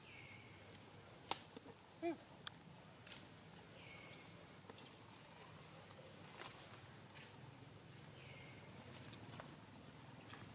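Faint outdoor insect drone, crickets chirring steadily. A short falling call repeats about every four seconds, with a few faint clicks and a brief squeak about two seconds in.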